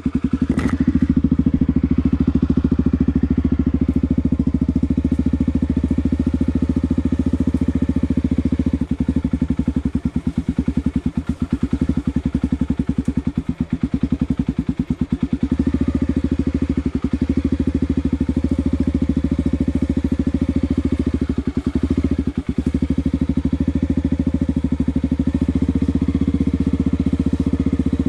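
Honda XR250 Tornado's single-cylinder four-stroke engine running at low revs with a rapid, even beat as the motorcycle is ridden along a dirt trail. The engine note dips briefly about a third of the way in and again past two-thirds.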